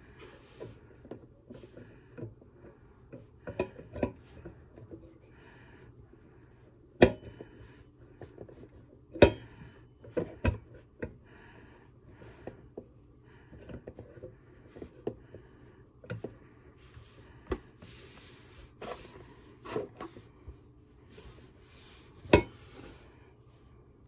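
A disinfecting wipe rubbing and rustling over a rotary phone's metal handset cradle and bell, with scattered clicks and knocks as the phone is handled. The loudest knocks come about seven, nine and ten seconds in and again near the end.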